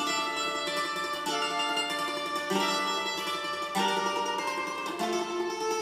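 Bowl-back mandolin played classical-style with a pick: a slow melody whose held notes are kept ringing by rapid tremolo picking on the doubled strings.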